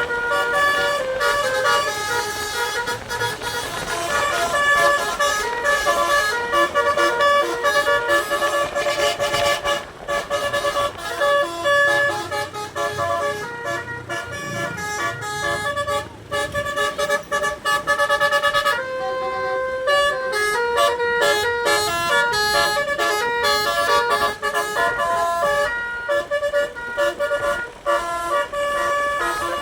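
DAV D3 multi-trumpet musical air horn on a tour bus playing a 'telolet' melody: several horn tones sound together and step from note to note. The tune changes to a new phrase about 19 seconds in.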